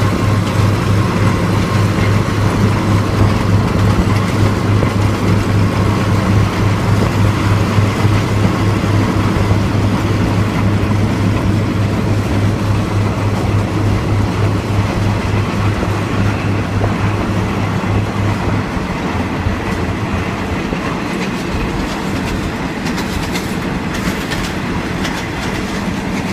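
Passenger train running, heard from on board: a steady rumble of the moving train with a strong low drone that drops away about 18 seconds in.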